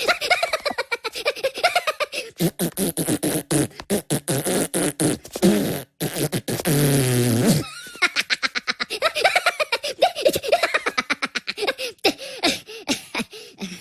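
Minion cartoon voices from a ringtone making silly mouth noises and gibberish: a fast run of short clicking pulses, then a long low sound that falls in pitch about six seconds in, then more babbling.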